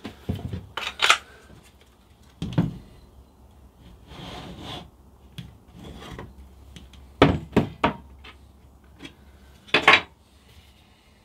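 Handling noises of tools and plastic wall holders: scattered knocks and clicks with some rubbing in between, a burst of knocks about seven seconds in and another near ten seconds.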